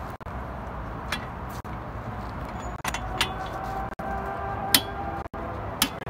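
Half-inch click-type torque wrench on a front drive shaft nut being pulled to its final 184 ft-lb torque, with several sharp metallic clicks and clinks, the loudest just under five seconds in.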